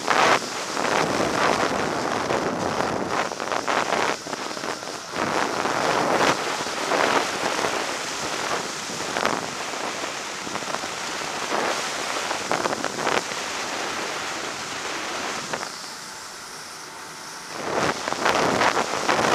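Wind rushing over the microphone of a moving Ski-Doo snowmobile, with the sled's running noise underneath. The rush eases for a couple of seconds near the end, then picks back up.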